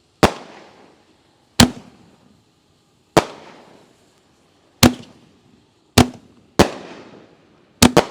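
Aerial fireworks firing: about eight sharp booming reports, each trailing off in a short echoing rumble. They come roughly every second and a half, then quicken near the end.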